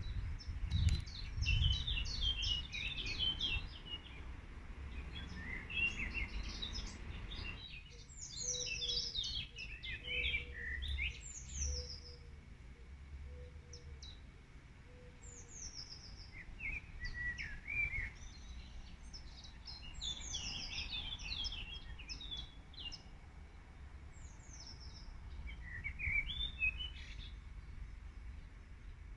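Several songbirds singing and calling in short, quick phrases, over a low background rumble. A soft, lower note repeats several times through the middle.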